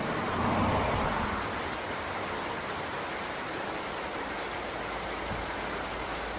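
Steady rushing water, swelling a little for about a second near the start.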